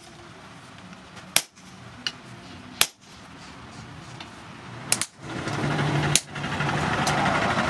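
Hand hammer striking red-hot rebar on a steel post anvil: single sharp metallic blows about a second and a half apart, with a quick double blow about five seconds in. After that a louder, fuller background sound comes in beneath the blows.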